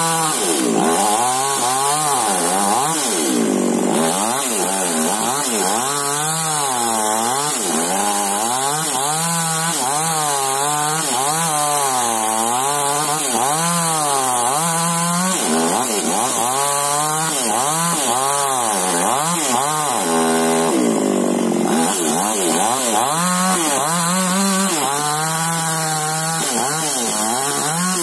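Chainsaw cutting a large tree, its engine pitch rising and falling over and over as it cuts.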